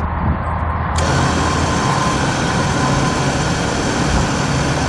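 Bulldog 2500 lb electric ATV winch, a 3-stage planetary-gear unit, running under load and reeling in its synthetic rope to pull the ATV forward. The motor and gear whir starts again about a second in after a brief stop, over a steady low engine hum.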